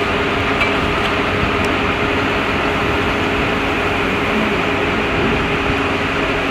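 Fire service turntable ladder truck's diesel engine running steadily, a constant mechanical hum with a few low steady tones, as it powers the raised ladder.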